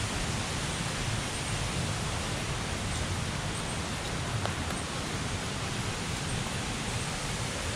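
Waterfall rushing steadily: an even, unbroken hiss of falling water.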